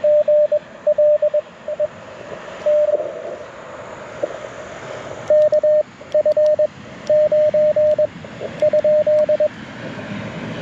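Morse code (CW) tones of about 600 Hz keyed in dots and dashes from an LNR Precision Mountain Topper MTR4B transceiver through a small speaker. The keying stops for a few seconds, leaving only the receiver's band hiss, then resumes for about four seconds.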